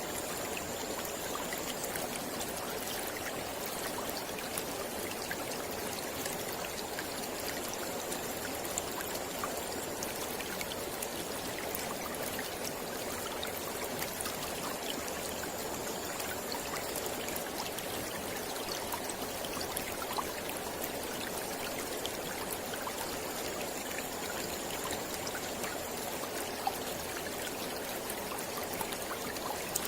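Mountain river flowing steadily: a constant rush of water scattered with tiny splashes.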